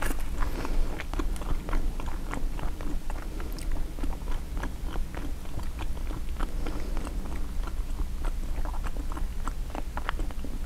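Close-miked chewing of a turkey sausage, egg and cheese bagel: a steady run of small wet mouth clicks and smacks.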